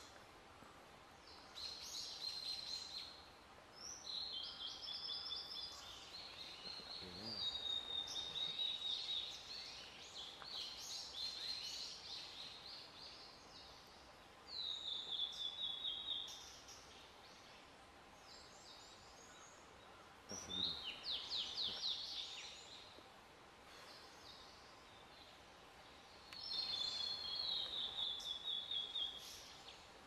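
Male blue-and-white flycatcher singing: a run of clear, high whistled phrases, each a second or two long, separated by short pauses, with a few longer gaps in the second half.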